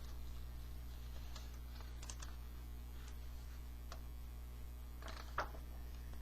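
Faint scattered clicks and ticks, one a little louder near the end, over a steady low electrical hum.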